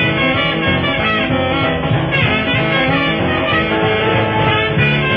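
Background music: an instrumental New Orleans rhythm-and-blues band track, with no singing.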